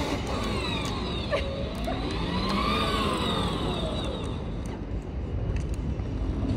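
Child's battery-powered ride-on toy truck driving, its motor whine rising in pitch and then falling again about three seconds in, over steady outdoor background noise.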